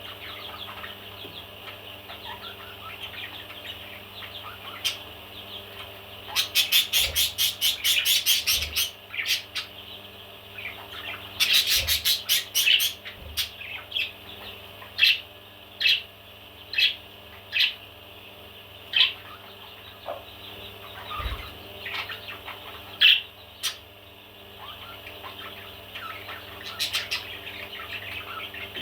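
Parrots chattering in a steady high twitter, with two loud runs of rapid chirps about seven and twelve seconds in, followed by a string of single sharp chirps.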